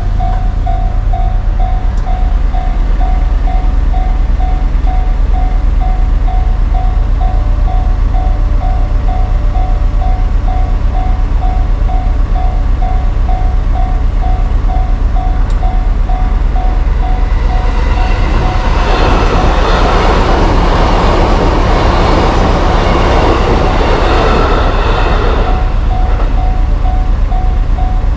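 Japanese railroad-crossing warning bell ringing in a steady repeated ding, about twice a second. About two-thirds of the way through, a JR Nambu Line electric train passes through the crossing for about seven seconds, its wheels on the rails loud enough to drown out the bell, which rings on after it has passed.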